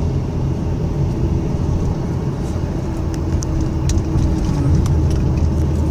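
Steady engine and road drone heard from inside the cabin of a 1997 Camaro driving along, its 3.8-litre V6 running at an even speed, with a few faint ticks.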